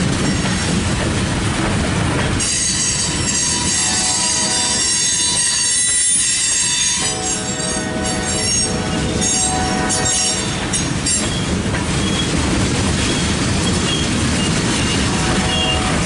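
Loaded hopper cars of a freight train rolling past, a steady rumble of steel wheels on the rails. From about two seconds in, high-pitched wheel squeal joins it, breaking up and dying away by about eleven seconds.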